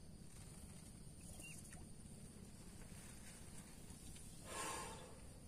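Near-quiet open-air ambience: a low steady background hiss with a faint thin high tone, and one brief soft rustle about four and a half seconds in, from hands handling fishing gear.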